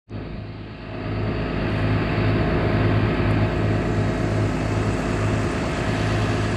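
Heavy tree-service equipment engine running steadily, with a low hum that pulses at an even rate. The sound comes in from a brief dropout and rises over the first second or two, then holds.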